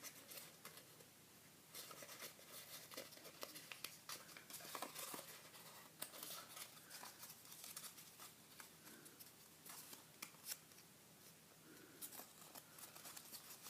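A square of paper being folded by hand into a fan along its crease lines: faint, scattered crinkles and crisp creasing clicks.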